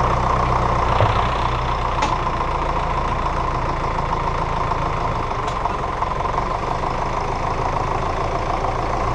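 Tractor engine running steadily with a seed drill hitched behind.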